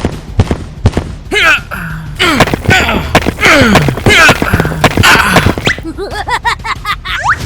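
A few sharp thuds, then a string of gliding, whistle-like sound effects that mostly slide down in pitch, with one rising glide near the end.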